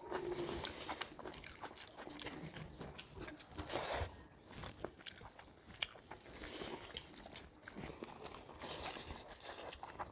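Two people eating chicken liver, gizzard and egg curry with rice by hand: close chewing and crunching with irregular mouth clicks, and fingers working rice and curry on steel plates.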